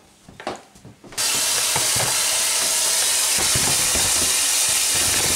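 Kitchen tap running full, cold water splashing into a stainless-steel bowl of freshly cooked spätzle in a steel sink to chill them. The water comes on suddenly about a second in after a few faint knocks, then runs as a steady hiss with small clinks.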